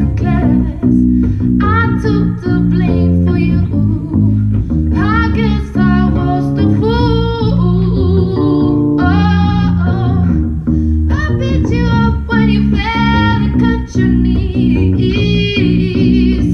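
Live amplified music: a woman singing with electric guitar backing, sustained sung phrases over steady low instrumental notes.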